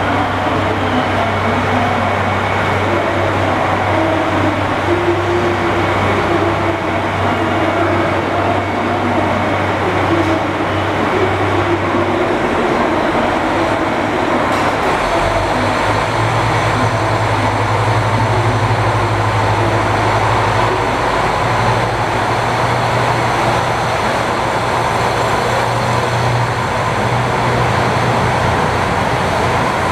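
JR Hokkaido KiHa 183 series 5200-subseries diesel railcars idling steadily at the platform. About halfway through, their diesel engines throttle up and the low engine note strengthens and rises as the train starts to pull out and moves off.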